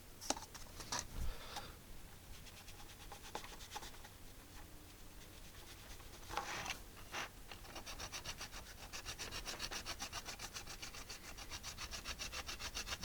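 Faint rubbing and scrubbing by hand on a keyboard part during cleaning with glass cleaner. A couple of short hissing bursts come about six and seven seconds in. Quick back-and-forth strokes, several a second, follow to the end.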